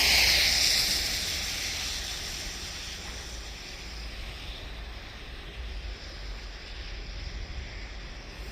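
Toboggan sliding over snow: a loud hiss that fades away over about three seconds, with wind rumbling on the microphone throughout.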